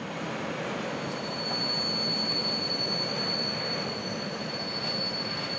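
Train approaching on the track, a low even rumble slowly building, with a steady high-pitched squeal from the rails and wheels setting in about a second in.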